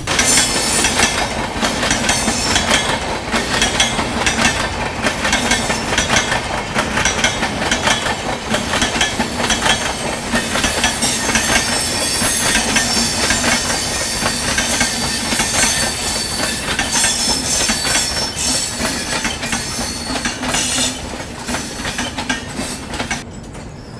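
Two passenger trains running side by side at speed: a loud, dense clatter of steel wheels over the rails, one train overtaking the other on the adjacent track. The noise falls away suddenly near the end.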